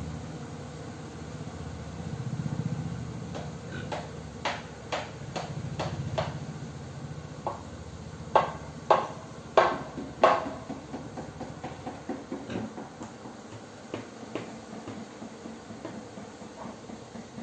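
A series of sharp knocks, like something hard being struck: scattered at first, then four loud ones in quick succession about halfway through, then fainter ones. A low hum sits under the first half.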